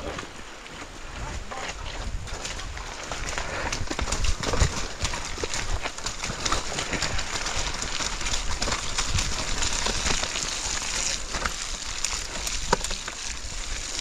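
Mountain bike riding down a wet, muddy, rocky trail: a steady rush of tyres through mud and over stones, with many small clicks and knocks as the bike rattles over the rocks.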